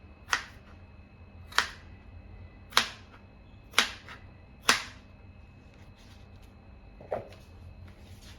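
Five sharp knocks about a second apart, then a duller knock near the end, over a faint steady hum.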